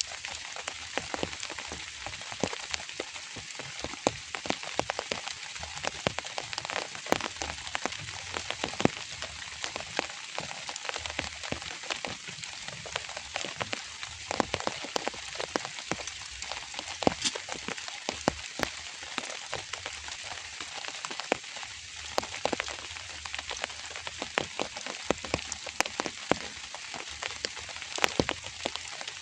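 Drizzle falling: a steady light hiss full of small, sharp drop ticks, some louder than others.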